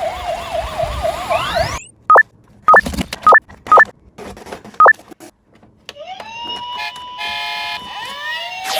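Toy police car's electronic siren yelping in quick rising and falling wails, cutting off abruptly about two seconds in. Then five short, loud two-note electronic beeps, and in the last few seconds a tone that slides up and holds among other electronic sound effects.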